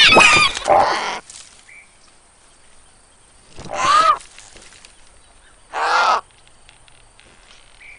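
Two caws from a cartoon bird, about two seconds apart. They follow a loud burst of overlapping cries that stops about a second in.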